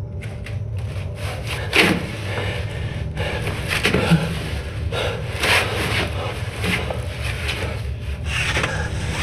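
A man crawling through a narrow duct: his arms and body scrape and rub against the duct's surfaces in irregular strokes about every second or two, over a steady low rumble.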